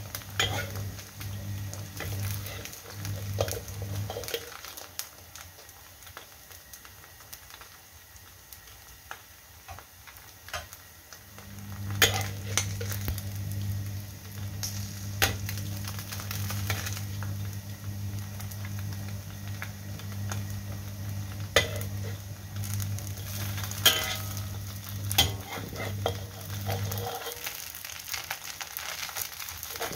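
Slices of Chinese New Year cake frying in oil in a wok, with a steady sizzle. A metal spatula clicks and scrapes against the wok several times, sharpest from about halfway through. A low steady hum drops out about four seconds in, comes back around eleven seconds and stops near the end.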